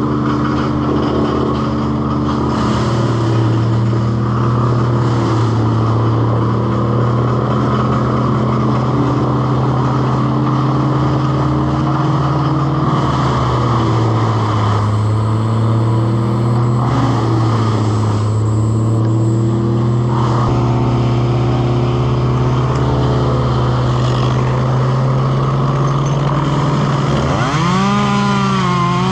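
Steady engine drone whose pitch wavers slowly up and down. About 27 seconds in, a chainsaw revs up sharply and keeps running at high speed.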